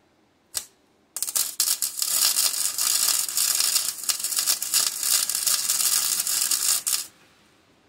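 Wire-feed welder arc crackling as a bead is run on a steel ATV frame: a short blip about half a second in, then a stuttering start that settles into a steady crackle, cutting off suddenly near the end.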